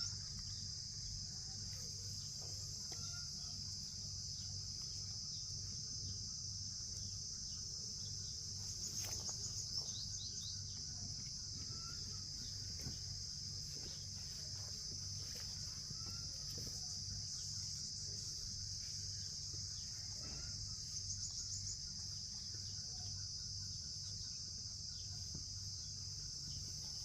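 Steady high-pitched insect chirring over a low, pulsing hum, with a few faint short chirps.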